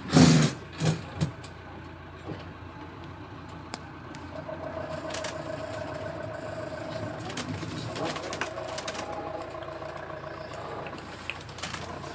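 Car interior noise while driving slowly: a steady engine and road hum with a faint steady whine in the middle. It opens with a loud thump and two smaller knocks, the handheld device being jostled.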